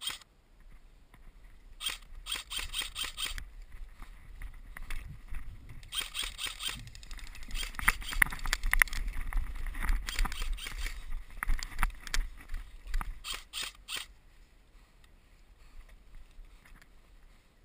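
Airsoft guns firing in quick runs of sharp clicks, with a low rumble that swells in the middle and fades after about 14 seconds.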